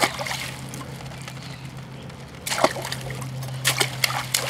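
Water poured from a plastic jug splashes onto a baby's skin and the plastic sheet beneath: a short splash at the start, a stronger one about two and a half seconds in, then quick splatters near the end.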